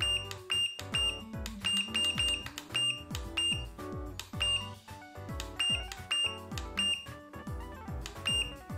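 Short, high electronic beeps from a tire pressure monitor's display unit, one for each press of its arrow key, about two a second at an uneven pace, over background music.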